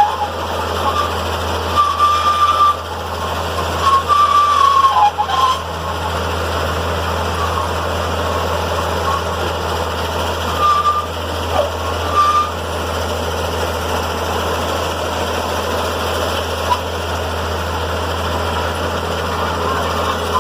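Diesel engine of heavy road-works equipment running steadily while the old road surface is dug up. A few short high-pitched tones break in over the first dozen seconds.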